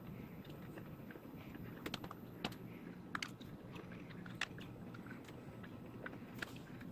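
Faint mouth sounds of someone chewing and biting on a chili-coated candy with a chewing-gum centre, with scattered sharp crunchy clicks over a low room hum.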